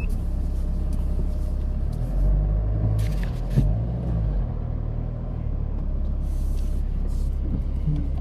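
Hyundai Starex van's engine running as the van creeps slowly along, heard from the cabin with the side window open; the rumble swells for a couple of seconds about two seconds in, with a couple of light clicks.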